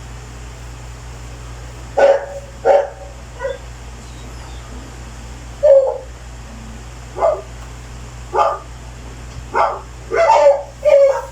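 A dog barking in short single barks, about nine or ten spread unevenly through the clip, some coming in quick pairs, over a steady low hum.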